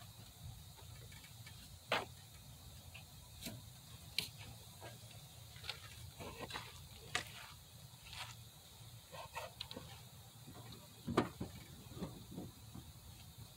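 Irregular metallic clicks and knocks of a socket wrench working the mounting bolts of a replacement alternator on a Chevy 5.3 LS engine, with two louder knocks about 2 seconds in and near the end.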